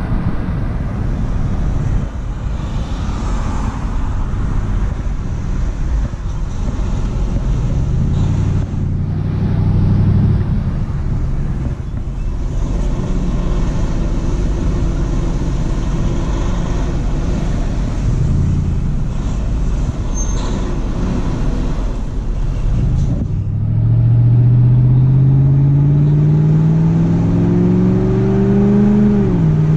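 Steady road and wind noise from a vehicle on the move. Over the last several seconds its engine rises steadily in pitch as it accelerates, then drops sharply near the end at a gear change.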